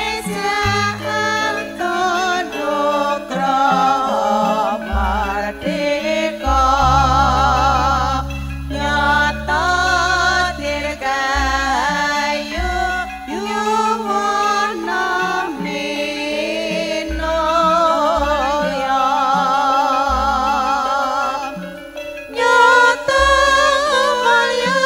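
Live Javanese campursari langgam music: a woman sings long, wavering notes over a band with sustained bass notes that change every second or two.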